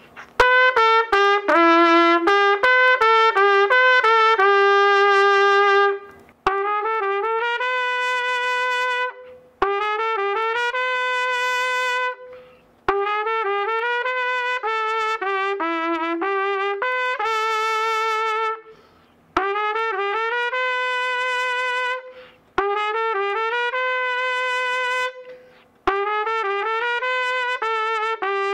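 Trumpet playing a melody in F-sharp minor, in phrases of quick, separately started notes with short pauses between the phrases.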